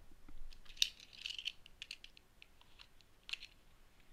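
Small clear plastic packaging box handled in the hands: faint scattered plastic clicks and crinkles, a cluster about a second in and another sharp click a little after three seconds.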